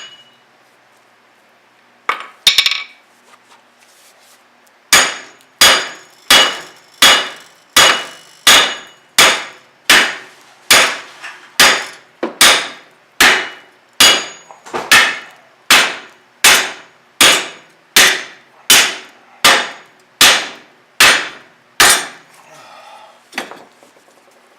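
Hammer blows on steel, a steady run of about two dozen strikes roughly three every two seconds, each leaving a brief metallic ring, as a car's front wheel hub bearing is driven out of its knuckle. The hub is stuck fast by corrosion.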